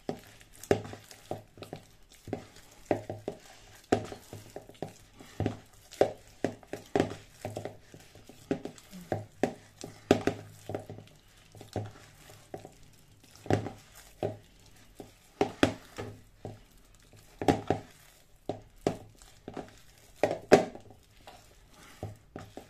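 Hands kneading soft, oily dough in a plastic bowl: irregular squelches and soft slaps, a few a second, some louder pushes knocking the bowl.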